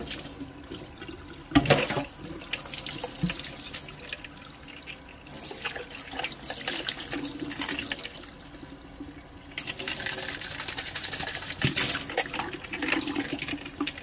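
Kitchen faucet running into a stainless steel sink while hummingbird feeder parts are rinsed under the stream, the splashing swelling and dropping as the parts and hands move in and out of the water. A sharp knock about a second and a half in.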